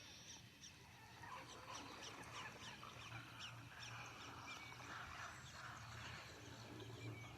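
Faint chorus of wild birds calling, many short high chirps in quick succession, over a low steady hum.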